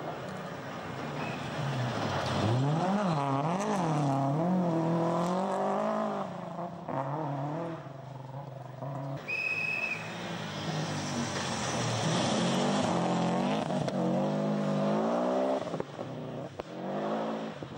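Rally cars on a gravel stage, their engines revving hard, pitch rising and falling sharply as they power through the corner; two loud passes, one in each half. A short high steady tone sounds between them, just past halfway.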